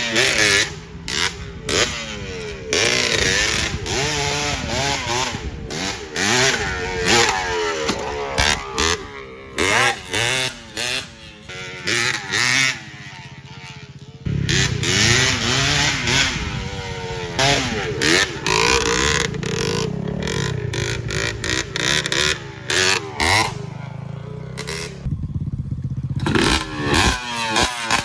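Engine running with its silencer off, revving up and down over and over. The engine is down on power and dies at idle.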